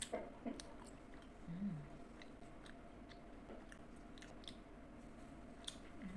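Close-miked chewing of gummy candy: soft, scattered wet mouth clicks, with a brief hummed 'mm' about a second and a half in.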